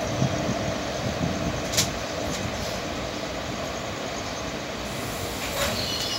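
Passenger train coach running along the track, heard from its open doorway: a steady running rumble and rattle, with sharp clicks of the wheels about two seconds in and again near the end.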